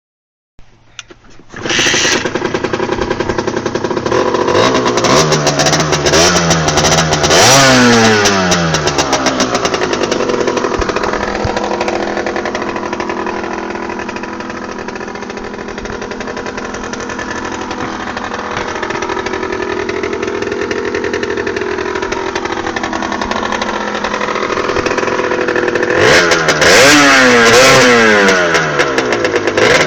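Rieju RRX 50cc two-stroke moped engine starting about a second and a half in, revved up and down a few times, settling to a wavering idle, then blipped repeatedly near the end. These are among its first runs after a new piston and a rebored cylinder.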